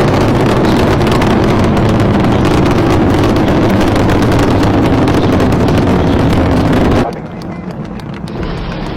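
Space Shuttle Discovery's launch roar from its solid rocket boosters and main engines during ascent: a loud, deep, crackling rumble. About seven seconds in it drops abruptly to a much quieter rumble.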